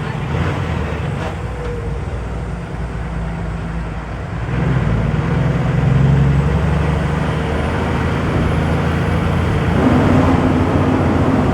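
Truck engine running with road noise, the engine note rising and getting louder about four and a half seconds in and shifting higher again near the end.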